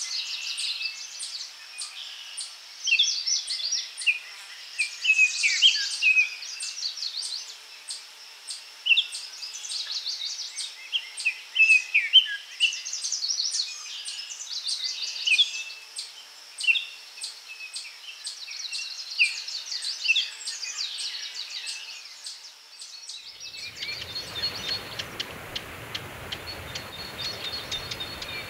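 Songbirds singing and chirping, several at once, over a steady high ticking about twice a second. About 23 seconds in, the birdsong gives way to a steady outdoor noise with a faint high tone.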